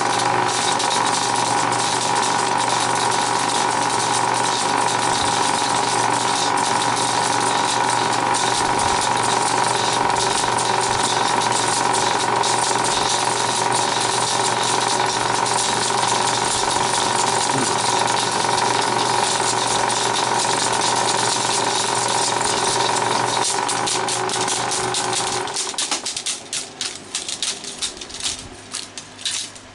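Bell & Howell 1575A 16mm film projector rewinding a reel: a steady mechanical whir of motor and spinning reels. About 25 seconds in the steady running stops, giving way to irregular clicks and rattles as the rewind finishes.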